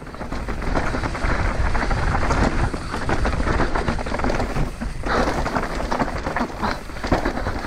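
Mountain bike tyres rolling fast over a rocky dirt trail covered in dry leaves: a constant crunching and clattering with many small knocks as the bike rattles over stones, over a low rumble of wind buffeting the camera microphone. The noise dips briefly about five seconds in.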